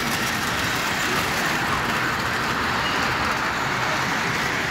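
Model train, a steam locomotive pulling freight cars and a caboose, running along elevated track: a steady whirring rumble of motor and wheels that swells in the middle as the train passes close, then eases off.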